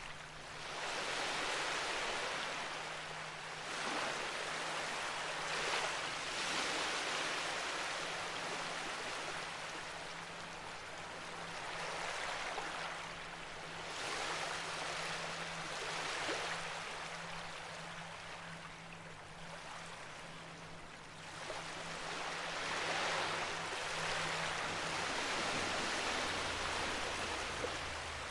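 Rushing water, a continuous wash that swells and eases every few seconds, with a faint steady low hum underneath.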